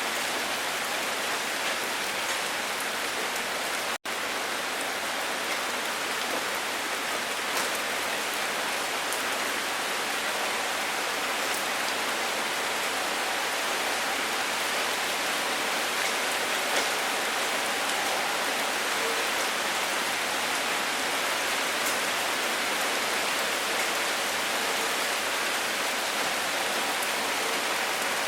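Steady rain falling on a surface: an even hiss with scattered drop ticks, broken by a momentary dropout about four seconds in.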